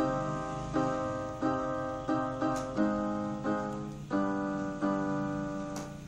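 Portable electronic keyboard played in a piano voice: chords struck at a steady pace, about one every three-quarters of a second, each fading before the next.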